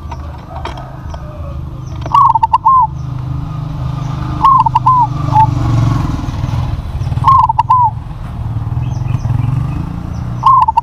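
Zebra dove (perkutut) cooing: a short phrase of three or four quick bubbling notes, repeated four times about every two to three seconds. Under it runs a steady low rumble, with faint chirps of small birds.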